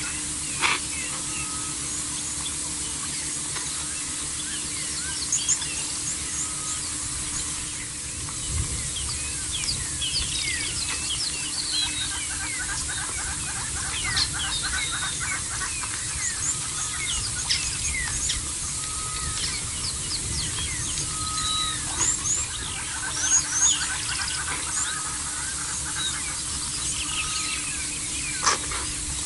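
Bushveld birdsong: many small birds chirping and calling over a steady outdoor background, with a short even note repeating every couple of seconds. A few sharp clicks come near the start and near the end.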